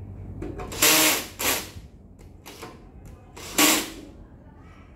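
Audio equipment case being opened and handled: three short, loud metallic scraping and rattling noises.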